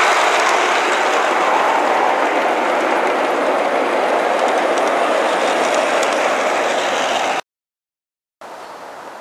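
G scale model freight cars rolling past on garden railway track: a steady rolling noise of wheels on rail, easing slightly as the train goes by. It cuts off suddenly about seven seconds in, and after a second of silence a faint outdoor hiss follows.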